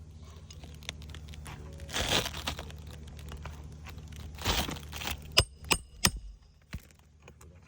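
Three sharp metallic clinks with a ringing tone in quick succession about five and a half seconds in, typical of a hammer striking roofing nails, after two rustling scrapes of shingle material. A steady low hum runs underneath and stops about six seconds in.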